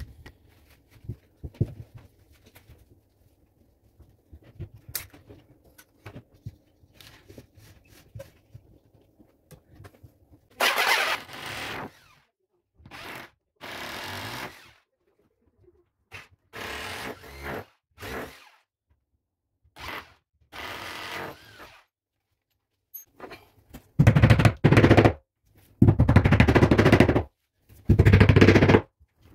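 Corded power drill boring into a ceramic-tiled wall in repeated short bursts, starting about ten seconds in after some light knocks of handling; the last few bursts, near the end, are louder, with a rapid rattle.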